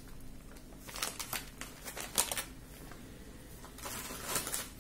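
Plastic grocery packets and a carry bag rustling and crinkling as they are handled, in several short spells.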